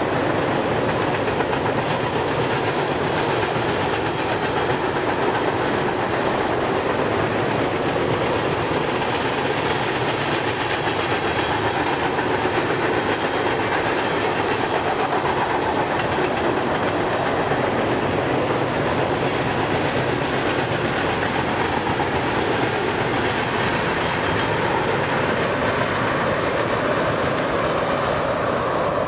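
Freight train of tank cars rolling steadily past: continuous steel wheel-on-rail noise from the passing cars.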